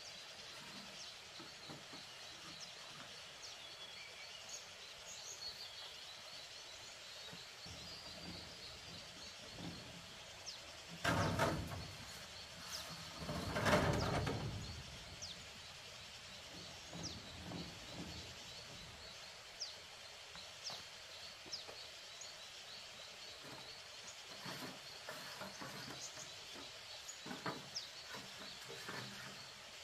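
Birds chirping against outdoor ambience, with a high, evenly repeated chirping and scattered light knocks. Two louder noisy sounds come about eleven and fourteen seconds in, each lasting a second or two.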